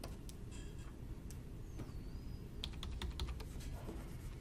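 Quiet clicking of computer keys and buttons while working at a computer: one click about a second in, then a quick run of several clicks in the middle, over low steady room noise.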